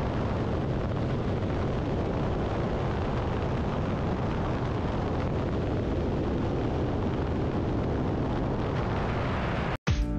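Steady rush of freefall wind buffeting the camera microphone during a skydive, cutting off suddenly near the end as music begins.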